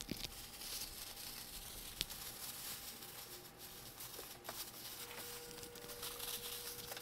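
Faint crinkling and rustling of a thin plastic grocery bag as ferrets wrestle and burrow in it, with one sharp tick about two seconds in.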